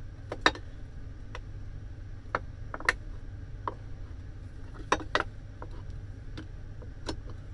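Light, irregular clicks and knocks of metal parts and hand tools being handled as a garden shredder's motor is taken apart, about ten in all, the sharpest about half a second in and near the middle, over a steady low hum.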